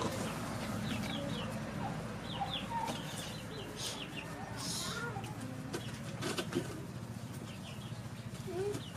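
Chickens clucking, with many short high chirps scattered throughout.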